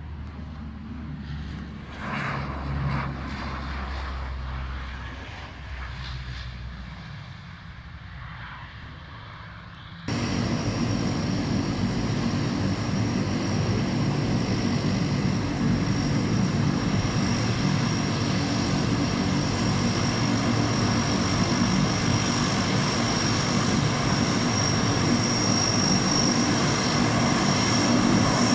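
Wind rumble and handling knocks on the microphone, then, after an abrupt change about ten seconds in, the steady drone of a C-130 Hercules's four turboprop engines as it taxis, with a steady high whistle over the propeller drone that grows slightly louder near the end.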